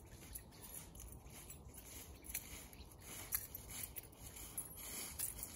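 Footsteps crunching through dry fallen leaves: faint, irregular crackling steps.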